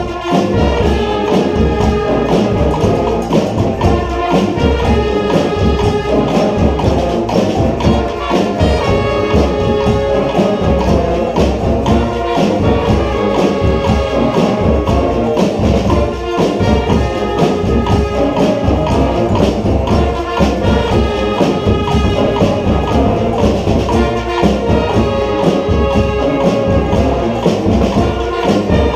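Brass street band playing a dance groove: horns holding and moving between notes over a steady drum beat with tambourine-like percussion.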